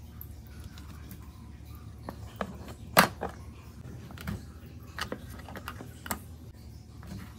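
Hard crab shells clicking and knocking against each other and a plastic tub as they are handled and set in place, with one sharp knock about three seconds in. A low steady hum underneath.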